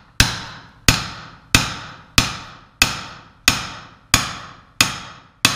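Hammer blows on a metal punch driving a press-fit wrist pin out of a Dodge 4.7L V8 piston: about nine sharp, evenly spaced strikes, roughly one every two-thirds of a second, each ringing briefly.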